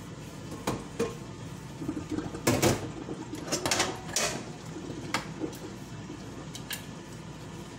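Stainless-steel pots and a pot lid being handled, giving a string of irregular metal clanks and knocks; the loudest comes about two and a half seconds in.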